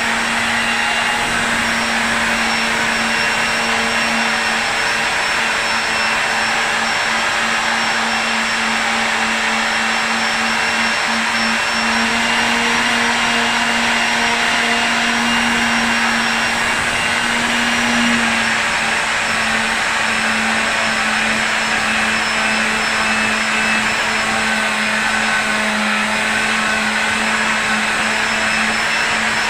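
An electric motor running steadily without a break, a continuous whine over a rushing noise.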